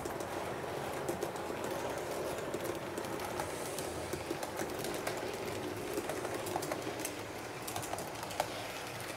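HO scale model train running along its track: a steady rolling whir with many small, irregular clicks from the wheels on the rails.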